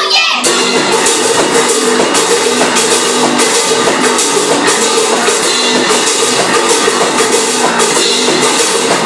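Live rock duo playing an instrumental passage: electric bass guitar and a drum kit keeping a fast, steady beat with repeated cymbal strikes.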